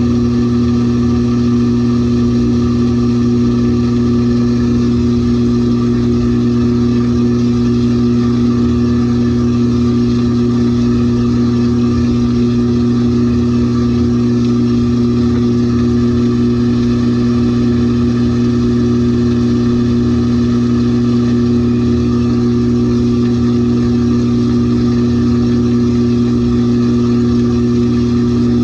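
LG 18 kg top-load washing machine running mid-cycle on its delicate programme: a steady, unchanging motor hum with a few constant low tones.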